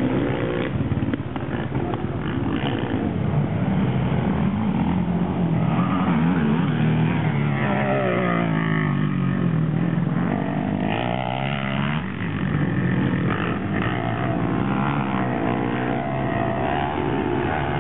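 Racing quad (ATV) engines revving hard, their pitch climbing and falling as riders accelerate and back off, with one quad passing close about eight seconds in.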